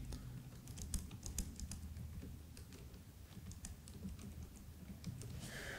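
Typing on a laptop keyboard: faint, irregular key clicks as a short sentence is typed.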